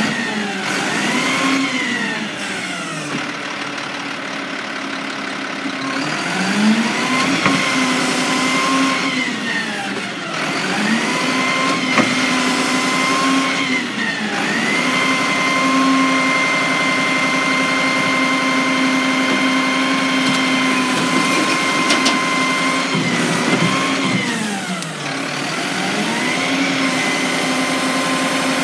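Mack LR garbage truck's engine repeatedly revving up, holding a raised speed and dropping back to idle, about five times, with one long hold of several seconds in the middle. The engine is working the hydraulics of the Heil Odyssey body's Curotto Can arm as it lifts a cart to the hopper.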